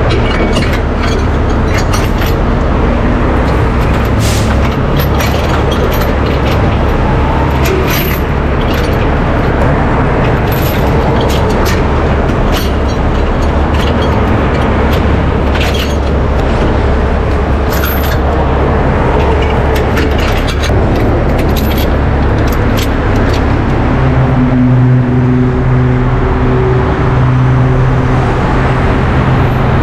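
Heavy-duty tow truck's diesel engine running steadily close by, with scattered clinks and knocks of chain and rigging being handled. Near the end the engine's hum becomes clearer and more even.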